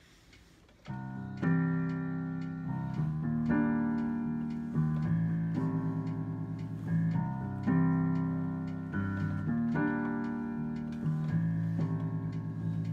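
Piano chords played on a keyboard: a slow instrumental introduction beginning about a second in, each chord struck and left to ring, with a new chord about every second or two.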